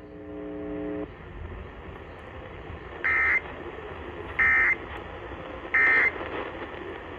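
Three short bursts of Emergency Alert System SAME digital data, the end-of-message tones, each about a third of a second long and a little over a second apart, heard over AM radio static. A steady buzzy tone fades out about a second in, before the bursts.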